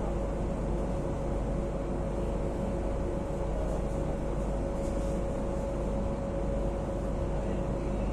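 Madrid Metro Line 9 train, unit 8427, running at a steady speed, heard from inside the carriage: a continuous deep rumble of wheels on rail with a constant motor hum on top.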